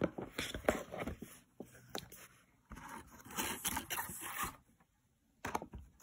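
Paper pages of a cross-stitch chart booklet rustling and scraping as a hand slides over and turns them, in short irregular rustles, with a brief pause and then one sharp rustle near the end.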